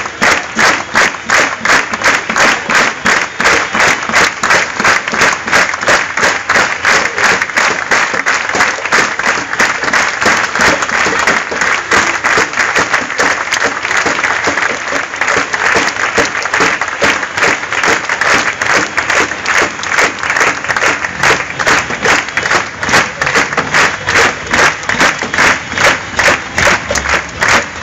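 A large crowd clapping in a steady rhythm, roughly two claps a second, with the noise of many voices underneath.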